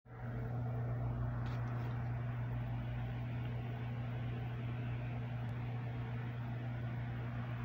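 A steady low machine hum at a constant pitch.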